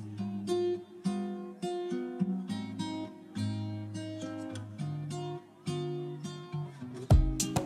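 Background music: plucked and strummed acoustic guitar, with a beat of sharp percussive hits entering near the end.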